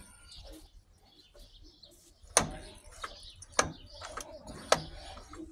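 Birds chirping in the background, broken by four sharp clicks or knocks in the second half.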